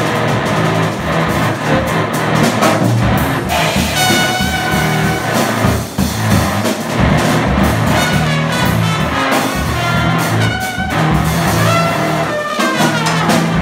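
A live trio of trumpet, Strandberg electric guitar and drum kit playing jazz. The trumpet comes to the fore about four seconds in over the busy drums and guitar, with some falling notes near the end.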